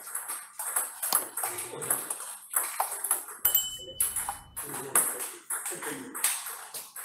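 Table tennis ball clicking off bats and table in a quick, irregular series of sharp ticks. About three and a half seconds in, a short high beep lasts about a second.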